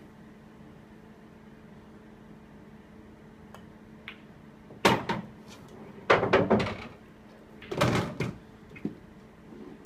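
Pool balls on a Supreme Winner pub table: faint clicks, then three loud clattering knocks about a second apart and two fainter ones, as balls collide and a potted ball drops into a pocket and rolls through the table's ball return. A low steady hum sits underneath.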